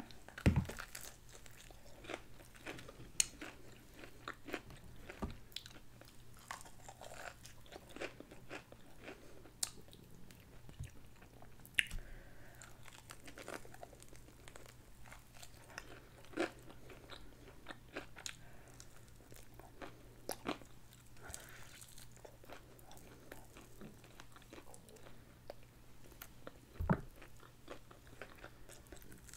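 A person biting and chewing crispy fried KFC chicken wings: irregular crunches of the breaded skin among softer chewing.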